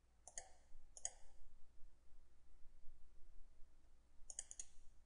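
Computer mouse buttons clicking: a pair of quick clicks twice near the start, then a short run of three or four clicks near the end.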